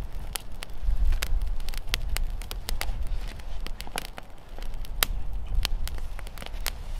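Small kindling fire of dry twigs and split wood crackling, with irregular sharp pops a few times a second over a low rumble.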